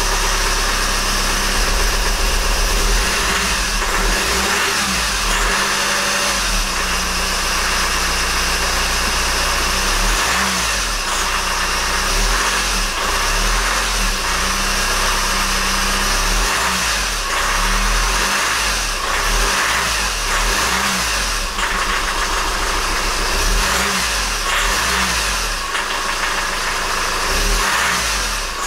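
Honda 2.2 i-CTDi four-cylinder diesel being cranked on the starter and struggling to catch, its speed rising and falling again and again. The fuel pipes and common rail have just been refitted, so the engine has to clear air from the fuel system before it runs.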